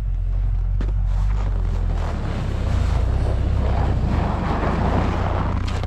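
Vehicle engine running steadily, its pitch shifting about two seconds in, with a rushing noise that builds and grows louder toward the end.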